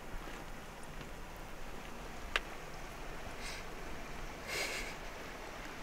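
Quiet outdoor background with one sharp click about two and a half seconds in and a couple of brief rustles shortly after.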